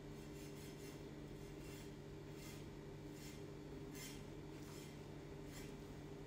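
A knife trimming fat off raw pork: a string of faint, irregular scraping and slicing strokes over a steady low hum.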